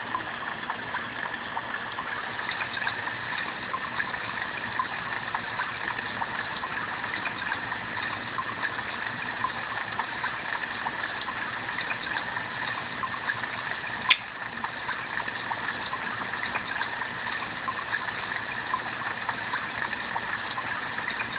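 Steady rushing hiss, even and unbroken, with one sharp click about fourteen seconds in.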